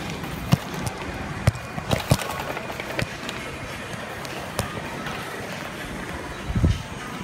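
Busy shopping-street ambience: a steady wash of crowd and city noise. Several sharp knocks break through it, the loudest a low thump near the end.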